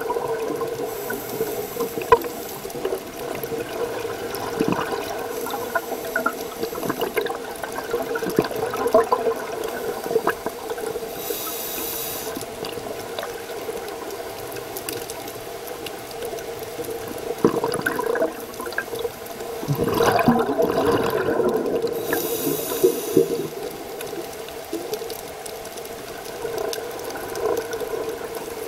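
Underwater sound of a scuba diver breathing through a regulator: short hissing inhales about ten seconds apart, and a loud rush of exhaled bubbles about twenty seconds in, over a steady hum.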